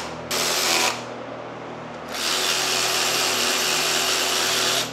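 Cordless power driver spinning bolts into the timing cover of a GM Ecotec 2.0 engine: a short run about half a second in, then a longer steady run of about two and a half seconds starting about two seconds in.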